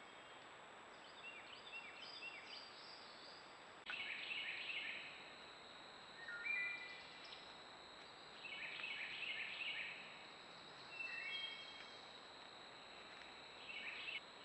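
Wild songbirds singing: short warbled phrases and a few clear whistled notes, repeated every couple of seconds. Faint at first, louder from about four seconds in, over a steady faint high hiss.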